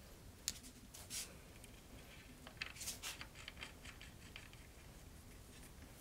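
Faint handling sounds of hands working wires and small parts at a chrome water-valve fitting: a sharp click about half a second in, a short scrape a little later, then a cluster of light clicks and scratches around the three-second mark.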